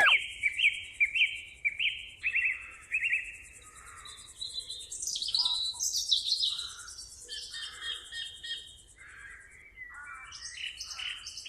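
Songbirds chirping and singing, with short repeated notes and varied calls overlapping, over a faint steady high-pitched hiss.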